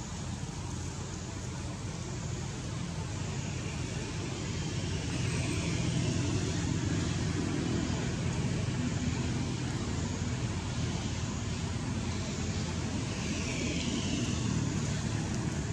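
Steady low rumble that swells about four seconds in and then holds.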